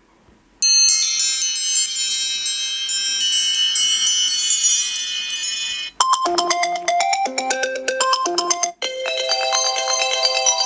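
iPhone 8 Plus ringtones playing one after another through the phone's speaker. After a brief silence, a high, shimmering cascade of chime notes runs for about five seconds. It cuts to a quicker melody of lower repeated notes, and about three seconds later switches to a brighter pattern of repeating notes.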